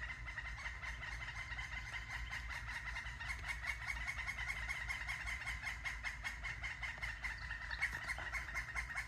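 Red-headed woodpeckers calling to each other: a continuous rapid chattering rattle of short calls.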